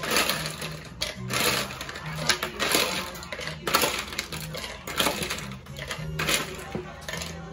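Ice cubes clinking and rattling, scooped by hand from a plastic tub and dropped into a glass in repeated clattering bursts.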